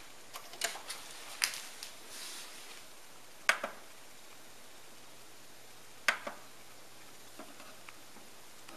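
Scattered sharp clicks of fingers pressing buttons on hi-fi equipment, a cassette deck and an amplifier. A quick run of clicks comes in the first second and a half, then two louder single clicks come near the middle and about two-thirds of the way through.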